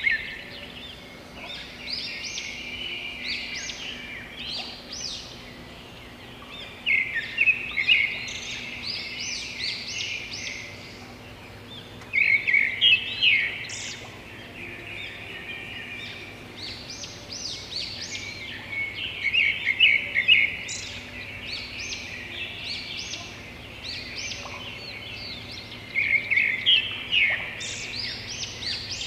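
A songbird singing, a phrase of quick chirping notes repeated about every six to seven seconds, over a faint steady low hum.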